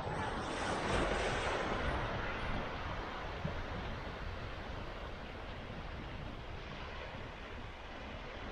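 Ocean surf breaking on a rocky shore: the wash swells about a second in and slowly dies away, with wind buffeting the microphone.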